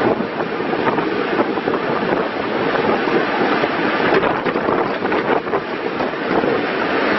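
Komatsu WB156PS-5 backhoe loader running: a steady mechanical clatter with scattered clicks and knocks, mixed with wind noise on the microphone.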